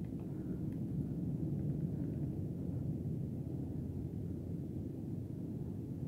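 Steady low rumble of wind buffeting the microphone outdoors.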